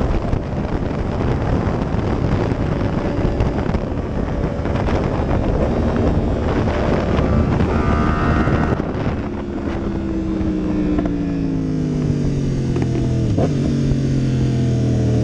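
Wind rushing over the microphone of a 2015 Yamaha YZF-R1 at speed, with its inline-four engine underneath. About nine seconds in the wind eases and the engine note comes through, falling in pitch as the revs drop. It then holds low and climbs slightly near the end.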